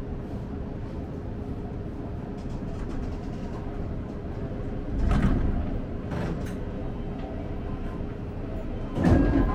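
Seibu Shinjuku Line electric commuter train standing at a station platform: a steady low rumble with a faint steady hum from the train. Loud bursts of noise come about five and six seconds in, and a louder one comes near the end.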